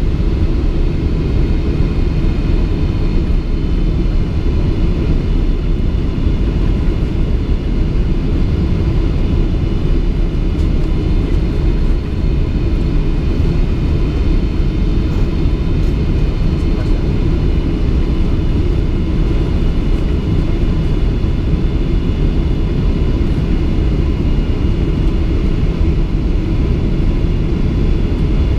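Cabin noise of a Boeing 777-200 airliner on final approach, heard from a front-row window seat. A steady, dense low rumble of airflow and the twin engines, with faint steady whining tones higher up.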